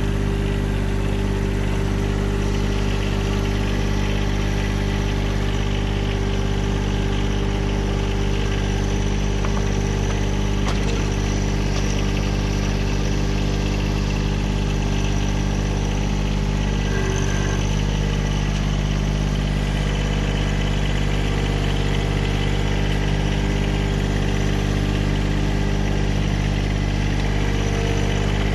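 Engine running steadily at one constant speed throughout, with no revving.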